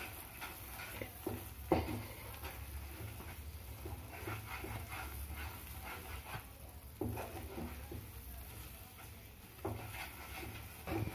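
A spatula scraping and stirring thick milk peda dough around a nonstick frying pan, with irregular soft scrapes and taps and a sharper tap about two seconds in, over a low steady hum. The dough is thickening and coming together, close to the right consistency for shaping peda.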